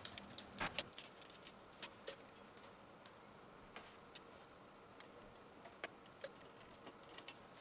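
Faint clicks and light taps as a KitchenAid stand mixer's trim band is fitted around the head and a screwdriver is picked up and set to the band's screw. The clicks come close together in the first second, then thin out to occasional ticks.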